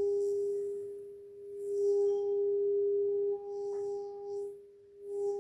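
Steady 400 Hz test tone from the Pioneer SX-1250's AM tuner, demodulated from a 600 kHz test signal and heard from headphones. It fades and comes back about a second in, and dips low near the end, over faint hiss.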